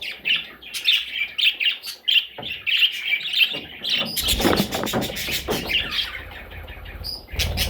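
Baby budgerigars chirping in quick, rapid-fire peeps throughout, with a few low bumps about halfway through and near the end.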